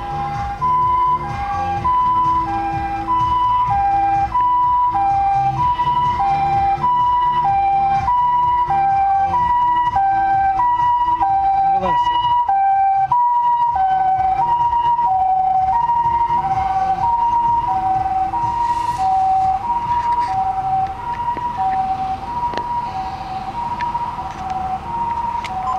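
Japanese ambulance siren sounding its two-tone hi-lo 'pee-po' call, a higher and a lower steady tone taking turns about once a second, heard from inside a car. It fades somewhat near the end.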